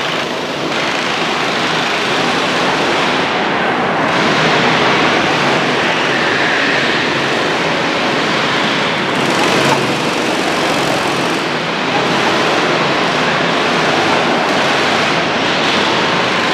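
Several small go-kart engines running as karts lap an indoor track, their sound merging into a steady wash of engine noise in the large hall.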